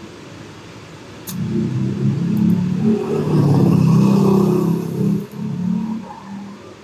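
A motor vehicle's engine revving, rising in level and loudest about three to five seconds in, then fading; a sharp click about a second in.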